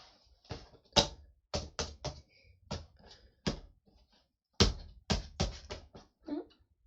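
A series of sharp, irregular taps and knocks, about a dozen: small objects being handled and set down on a hard surface.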